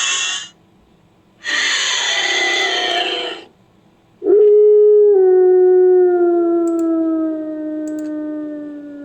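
Made-up Lycaenops creature sound effects built from leopard and wolf recordings: two short, harsh, raspy calls, then a loud, long howl that slowly falls in pitch and fades near the end.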